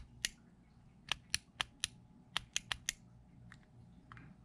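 JDI aftermarket push-to-start button being pressed over and over, giving about a dozen sharp little clicks, some in quick pairs and short runs.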